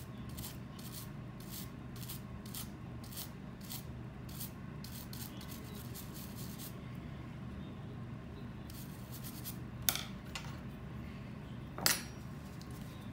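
Rhythmic rubbing strokes cleaning the Samyang 85mm f/1.4 lens, about two to three a second, stopping about halfway through; then two sharp clicks of the lens being handled, the louder one near the end.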